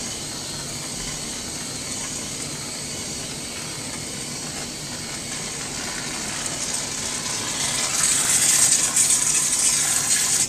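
Aerosol can of Cool Whip whipped topping spraying onto a pie: a continuous hiss that grows louder about eight seconds in.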